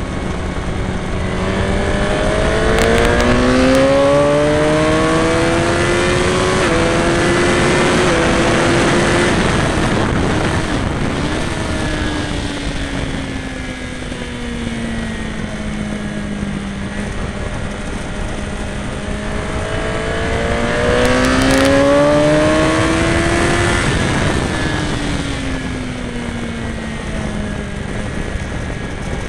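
Sport motorcycle engine heard from the rider's seat, rising in pitch under hard acceleration, then falling back as the bike slows, then rising and falling once more near the end. A steady rush of wind runs throughout.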